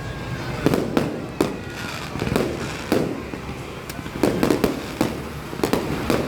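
Fireworks display: aerial shells bursting one after another, a sharp bang roughly every half second to second, several in quick clusters, each trailing off in a rumbling echo.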